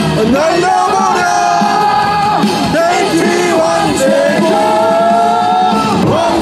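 Baseball cheer song played loud over a stadium sound system: a sung melody with long held notes over a band backing, with fans yelling along.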